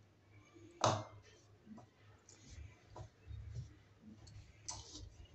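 Hand mixing water into flour in a plate for a stiff dough: soft rubbing and scattered small clicks, with one sharper click about a second in.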